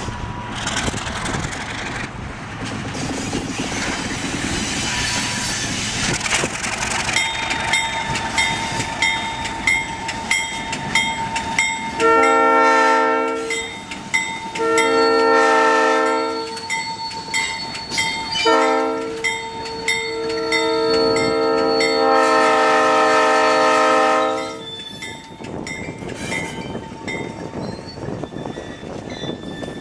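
An ALCO RS-11 diesel locomotive sounds its multi-tone air horn in the grade-crossing pattern: long, long, short, long, with the last blast held longest. A crossing bell rings steadily underneath as the train rolls through the crossing.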